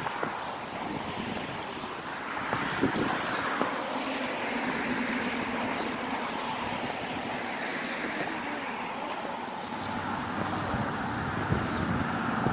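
Street ambience: a steady rush of wind and road traffic, with a faint low hum in the second half.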